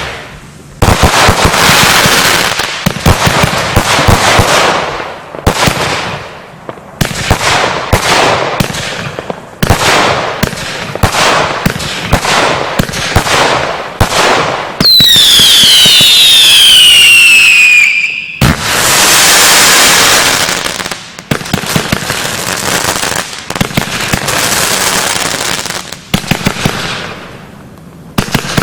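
Lesli "Böse Schwiegermutter" fireworks battery firing shot after shot, each launch and burst followed by hissing crackle. About fifteen seconds in, a volley of whistles falls in pitch for about three seconds, then a loud continuous stretch of crackling.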